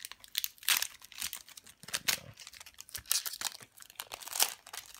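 Foil wrapper of a Pokémon booster pack crinkling as it is handled, a quick run of crackles.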